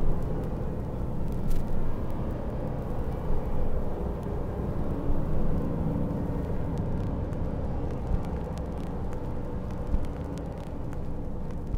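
Steady low rumble of a motor vehicle, with a few light clicks.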